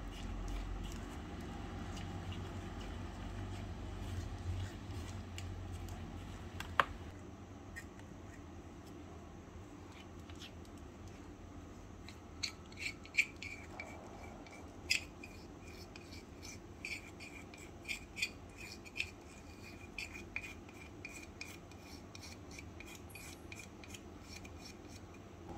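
A small utensil scrapes and stirs thick cream in a miniature steel bowl, then scrapes it out into a small tin mould. In the second half come a series of sharp ticks and clinks of metal on metal.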